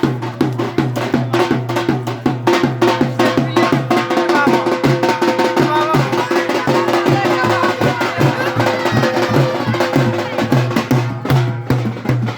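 Drum group playing a fast, loud rhythm: deep drum strokes repeating under rapid sharp stick hits, with a melody or voices faintly behind.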